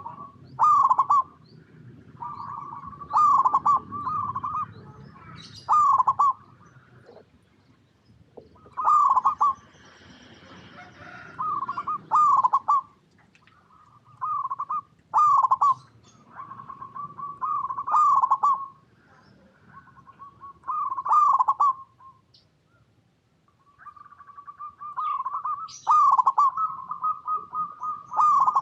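Zebra dove cooing: repeated song phrases, each a quick run of falling, stuttering coos, coming every two to three seconds with a few longer pauses between.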